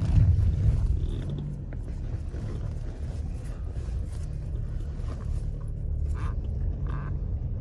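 Low steady rumble of a car driving slowly along a snow-cleared village road, with a louder bump just at the start.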